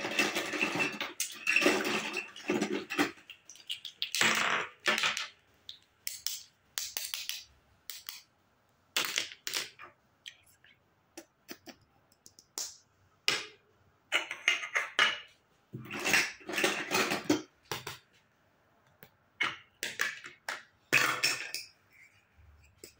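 Plastic toy kitchen pieces (play dishes, utensils, play food and a small lidded tub) clicking and clattering as they are handled and set down on a tabletop, in irregular bursts with short pauses between.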